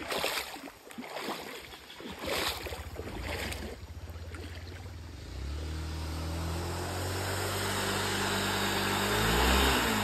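A vehicle engine running and picking up speed from about halfway through, its pitch rising steadily and dipping just before the end, over a steady rush of wind or road noise. A few sharp knocks sound in the first few seconds.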